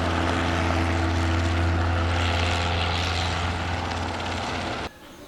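Helicopter engine and rotor sound: a steady, even drone with a strong low hum, which cuts off suddenly near the end.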